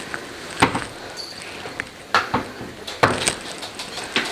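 Wooden kitchen cabinet doors being opened and shut, giving about five sharp knocks and clacks spaced unevenly.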